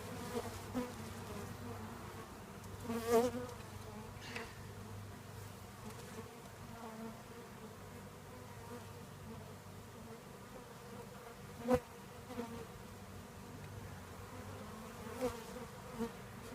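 A mass of honeybees buzzing steadily, freshly shaken from their package into the hive. A few brief sharp knocks sound over the hum, the loudest about three seconds in and another near twelve seconds.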